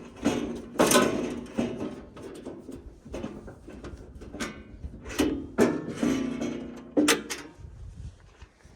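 Irregular clunks, knocks and rattles of hands working on a bandsaw mill's saw head while checking the band blade's tracking, its engine stopped.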